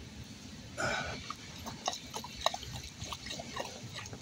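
Floodwater gurgling down a storm drain that has just been cleared of a partial clog, with a brief louder rush about a second in and then scattered short bubbling pops.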